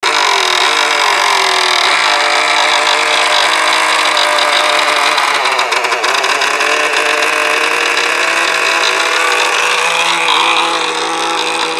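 Small model-airplane engine of a control-line aerobatic plane running steadily at high revs, its pitch rising and falling slightly as the plane circles the pilot.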